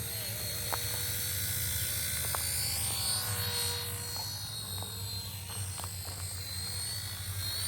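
RC helicopter in flight, a steady high whine from its motor and rotor with a low hum beneath. The pitch shifts about halfway through as it manoeuvres.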